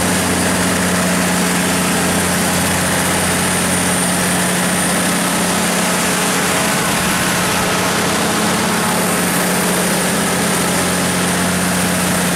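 Cummins NTA-855-G3 turbocharged inline-six diesel engine of a 350 kW standby generator set running steadily at its governed speed, a constant deep hum over a broad hiss.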